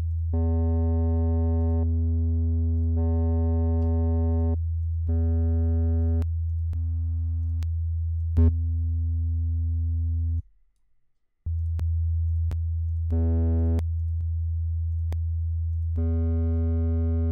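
Low sine-wave test tone played through a series of compressor plugins set to a 1:1 ratio, switched in one after another. With some of them the tone picks up overtones and turns buzzier, the saturation or colour their circuitry adds; with others it stays a pure low hum. Faint clicks mark each switch, and the tone cuts out for about a second around ten seconds in.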